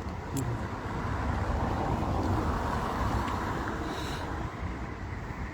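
A road vehicle passing, a rushing noise with low rumble that swells to a peak about halfway through and then fades.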